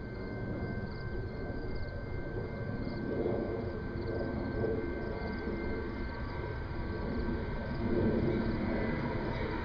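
Diesel freight locomotives approaching, their engines a low rumble that grows louder as they near, swelling about three seconds in and again near the end.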